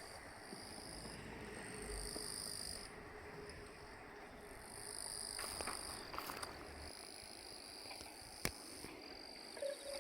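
Insects calling in high trills that repeat every couple of seconds, each lasting a second or two with short gaps between. A single sharp click sounds near the end.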